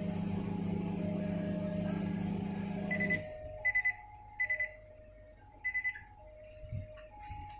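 Microwave oven running with a steady electrical hum from its high-voltage transformer. The hum stops about three seconds in, and the oven then gives short high-pitched beeps in quick groups of two or three.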